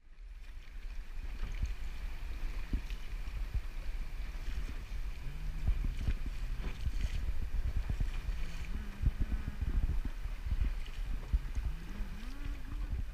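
Inflatable boat under way: its motor running, the pitch rising a few times, under a heavy rumble of wind buffeting the microphone.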